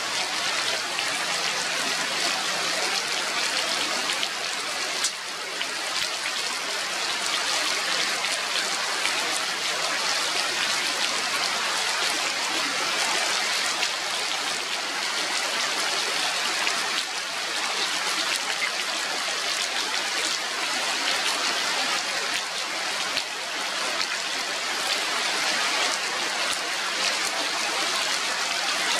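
Steady rain falling on forest foliage: a constant hiss, with single drops now and then standing out.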